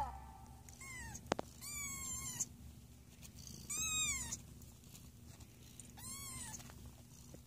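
Five-day-old Siamese kittens mewing: four short, high-pitched cries, each rising and then falling in pitch, with a sharp click just after the first.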